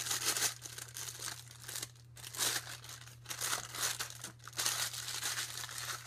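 Thin plastic piping bag filled with whipped soap crinkling in irregular rustles as gloved hands handle and twist it, along with the disposable plastic gloves. A steady low hum runs underneath.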